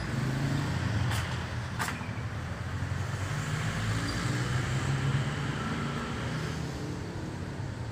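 Road traffic running past: a steady low engine rumble from passing motor vehicles, with two short clicks a bit over a second in.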